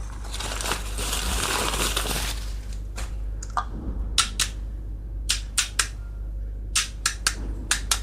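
Crackling rustle of packaging for about two seconds, then a dozen or so sharp little clicks in uneven groups as small plastic pieces of a miniature toy kitchen set are handled and set down.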